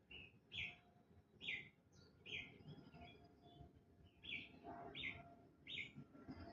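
Wild birds chirping faintly: about seven short, sharp chirps, spaced irregularly with a pause in the middle.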